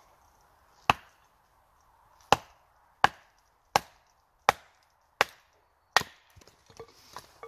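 Small hatchet chopping and splitting short lengths of firewood on a wooden chopping block: seven sharp chops, the last six about one every 0.7 seconds, then a few lighter knocks near the end.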